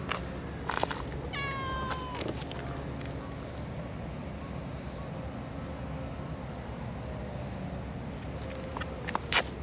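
Brown tabby-and-white cat giving one short meow, about half a second long, roughly a second and a half in. A few sharp clicks near the end.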